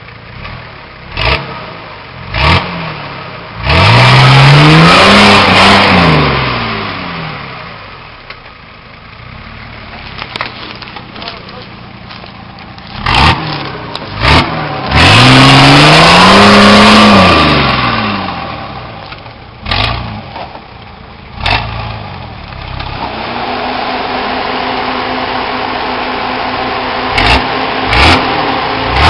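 Nissan Patrol GR Y60's 4.2-litre diesel engine revving hard under load as it climbs a steep, rooty bank. Two long revs, about 4 and 15 seconds in, rise and fall in pitch. Shorter throttle blips come between them, and the engine settles into steadier running near the end.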